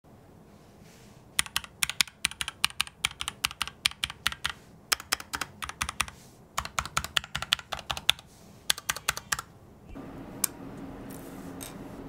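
Typing on a stock Keychron K2V2 mechanical keyboard with red linear switches: quick runs of key clacks with short pauses between them. Near the end the typing stops, and a faint steady low hum with a single click is left.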